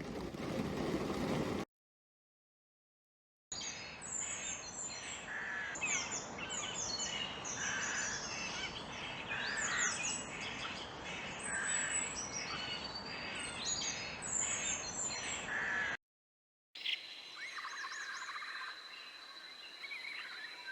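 Many small birds chirping and trilling together in a dense, busy chorus. It cuts off abruptly twice between clips. In the last few seconds the calls continue over a steady high-pitched tone.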